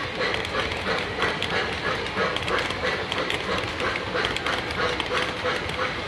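Model train passenger cars rolling past on the track, their wheels clicking evenly about four times a second over a steady hum.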